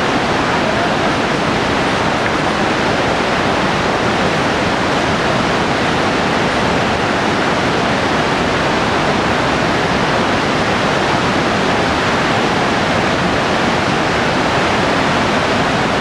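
Steady rush of a fast mountain river, white water churning over boulders in an even, unbroken noise.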